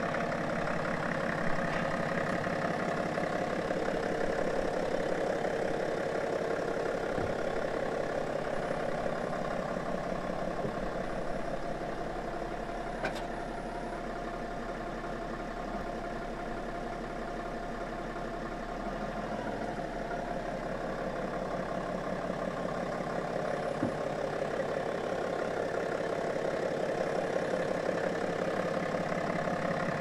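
BMW 7 Series engine idling steadily while the car is moved by remote-control parking from the Display Key, with a brief click near the middle.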